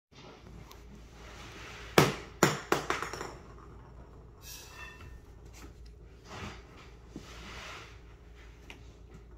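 A small hard object dropped to the floor: one loud hit about two seconds in, then several bounces that come faster and quieter until it settles.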